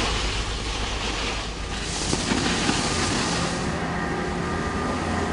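Steady rushing, rumbling noise, with a stronger hiss swelling about two seconds in and fading a second and a half later.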